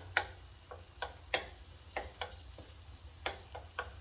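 Butter, garlic and lemon slices sizzling in a stainless steel sauté pan as a wooden spoon stirs them, with scattered small pops and crackles about every third of a second.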